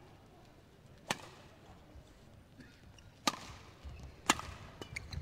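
Badminton rackets striking the shuttlecock during a rally: three sharp hits, the first about a second in and the other two about a second apart near the end.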